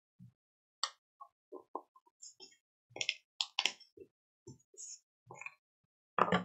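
Paper towels being handled on a craft table: a series of short rustles and soft taps, the loudest near the end.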